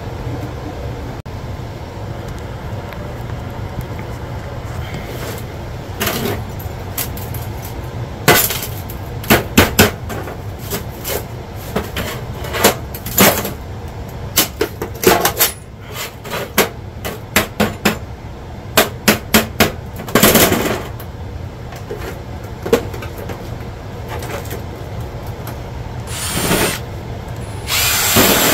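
Sharp steel-on-steel knocks and clinks in quick irregular runs as a freshly welded steel torsion bar is handled on a steel welding table. Near the end an angle grinder starts up and runs steadily on the bar.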